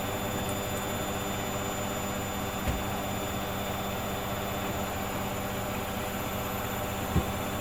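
Hoover Dynamic Next washing machine running with a steady motor hum, twice giving a brief low thump.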